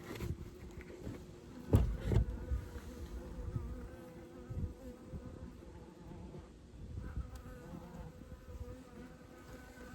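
Honeybees buzzing around an open horizontal hive, a steady hum that wavers in pitch, with a couple of sharp knocks about two seconds in.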